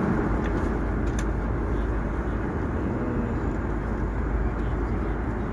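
Steady airliner cabin noise in flight: an even rush of engine and airflow noise, heavy in the low end, with a couple of faint clicks in the first second or so.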